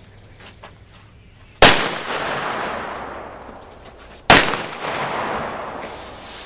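Two shots from a Ruger Super Blackhawk .44 Magnum single-action revolver, about two and a half seconds apart. Each sharp crack is followed by a long echo that rolls off and dies away over about two seconds.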